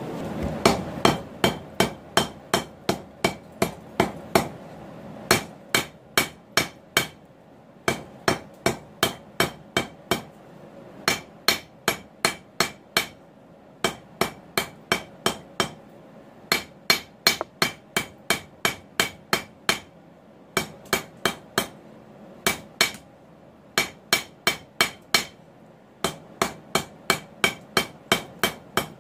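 Hand hammer striking a red-hot 1 inch by 3/16 inch mild steel bar on an anvil, each blow ringing. The blows come in runs of about two to three a second, broken by short pauses. The hot bar is being forged into shape as a frying pan handle.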